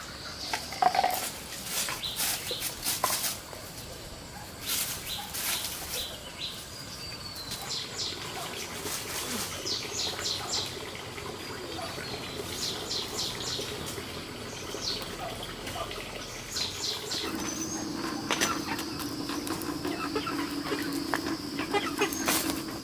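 Wood fire crackling and popping, with birds chirping around it; a steady low hum comes in for the last five seconds.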